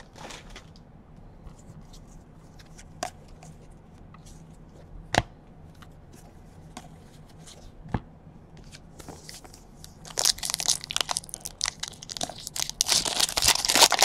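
A few isolated clicks of cards being handled, then from about ten seconds in a foil trading-card pack wrapper crinkling and tearing open in dense rustling.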